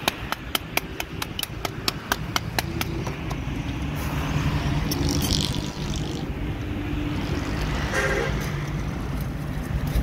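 A quick, even run of sharp taps, about five a second, for the first three seconds, then the steady low drone of a motor vehicle's engine.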